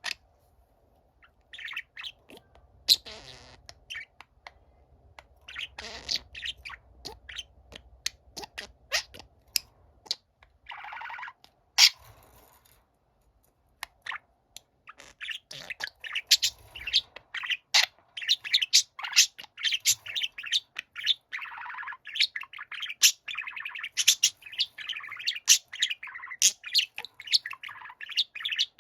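Budgerigar warbling: scattered short chirps and clicks at first, a brief pause about halfway, then a fast, continuous chattering warble.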